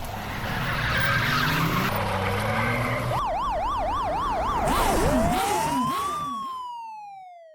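Police car siren sound effect over a rumbling rush of vehicle noise. About three seconds in, a rapid yelping wail cycles up and down quickly. It then changes to one long rise and fall as the siren fades away.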